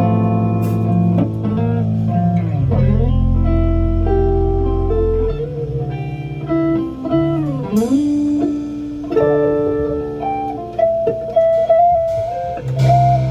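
Guitar playing a bluesy line of held notes over low bass notes, with notes bending and sliding in pitch about seven to eight seconds in, during a band's sound check.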